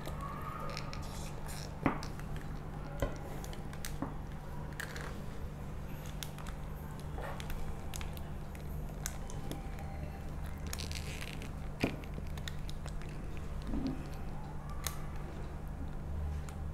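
Kitchen knife cutting through a baked brownie's crisp, cracked top crust: soft scraping and crackling as the blade presses down through the slab and onto the paper lining, with a few sharp clicks, the loudest about twelve seconds in. A steady low hum runs underneath.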